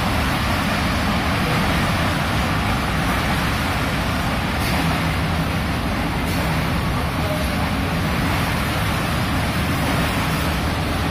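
Pakistan Railways passenger train's coaches running past on the track below, a loud, steady noise of wheels on rails.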